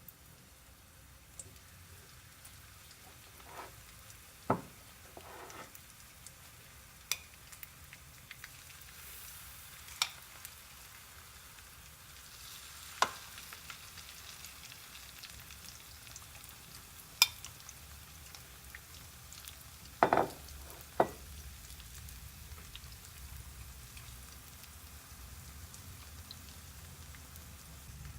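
Banana spring rolls (turon) frying in hot oil: a steady sizzle with sharp clicks now and then.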